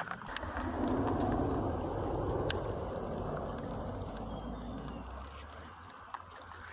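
Steady high-pitched insect drone over a rushing noise that swells about a second in and then fades away, with a couple of sharp clicks.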